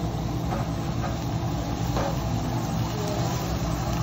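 Steady low mechanical hum, with a light sizzling hiss from food cooking on a hibachi griddle.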